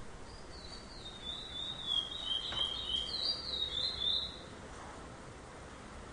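Male curió (chestnut-bellied seed finch) singing one rapid warbling phrase of about four seconds, high-pitched, with notes flicking up and down.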